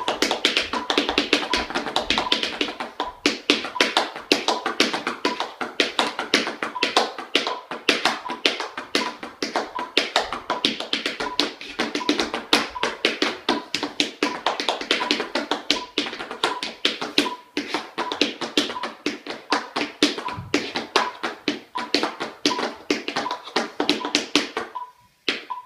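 Tap shoes striking a wooden floor in fast, dense rhythms, set against a steady metronome beep at 80 beats per minute. The tapping stops briefly near the end.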